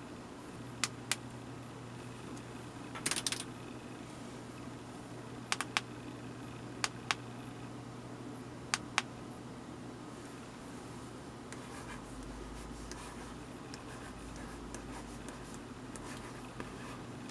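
A few sharp clicks, mostly in close pairs, in the first half, then a plastic stylus scratching softly across the screen of an 8.5-inch LCD writing tablet as words are written.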